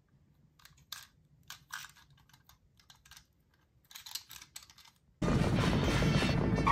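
Faint clicks and rustles of a hand handling a small toy truck, then about five seconds in a loud animated-film soundtrack with music cuts in suddenly.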